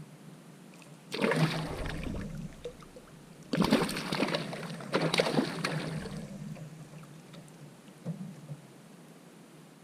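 Water splashing and sloshing against a canoe in three surges about two seconds apart, each dying away, with a smaller splash near the end.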